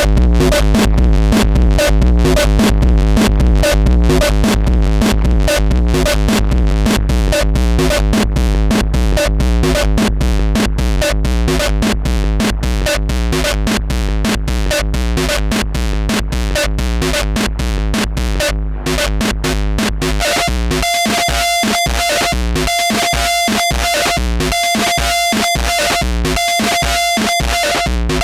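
Roland TR-6S drum machine beat loop distorted through an analogue overdrive pedal: fast, dense, gritty hits over a heavy low bass. About twenty seconds in, after a brief dropout, the pattern changes to chopped, repeating hits with a steady high-pitched ringing tone.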